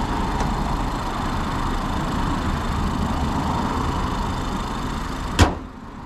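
Truck camper's engine running at idle with a steady hum, then a single sharp knock about five seconds in, after which the sound falls much quieter.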